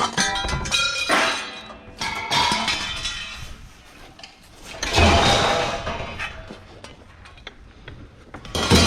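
Scrap metal pieces being thrown down and clanging, several separate ringing metallic impacts a few seconds apart.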